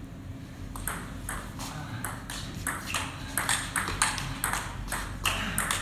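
Table tennis rally: the celluloid ball clicking off paddles and bouncing on the table, several sharp ticks a second, starting about a second in with the serve.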